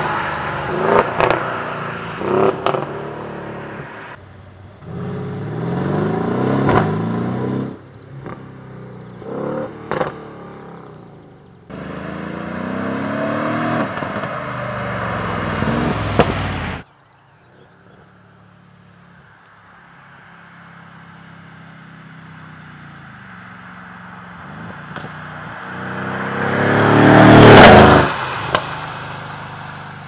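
Mercedes-AMG GLE 63's 5.5-litre biturbo V8 accelerating hard, its pitch rising again and again through the gears in a run of short clips, with sharp cracks in between. In the second half the engine grows from faint to loud as the SUV approaches and passes, loudest near the end, then fades away.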